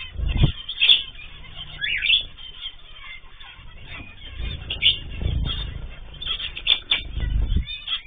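Small aviary finches giving short high chirps several times, with bursts of low rumbling noise coming and going.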